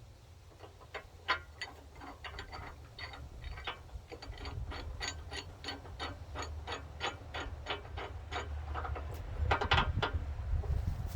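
Hand socket ratchet clicking steadily, about four clicks a second, as it turns a bolt on a bumper's D-ring mount, with a louder clatter of clicks near the end.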